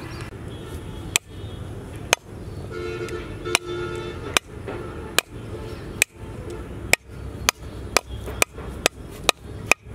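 A knife chopping on a cutting board, about a dozen sharp separate strokes that come faster toward the end, typical of a big fish being cut up.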